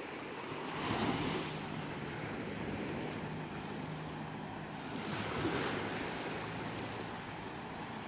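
Small waves breaking and washing up a sandy beach: a steady rush of surf that swells twice, about a second in and again around five and a half seconds.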